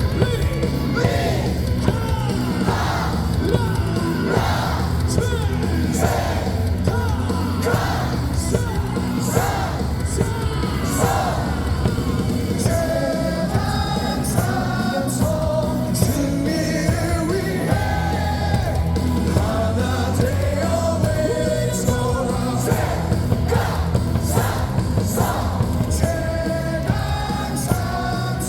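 Stadium crowd singing and shouting a cheer song along with loud amplified music, with a steady beat about once a second.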